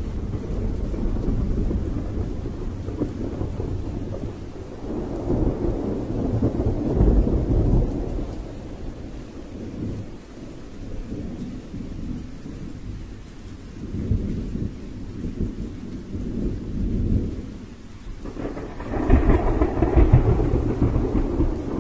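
Low rumbling storm noise that swells and fades in surges: a big swell about five seconds in, a lull around the middle, and the loudest swell near the end.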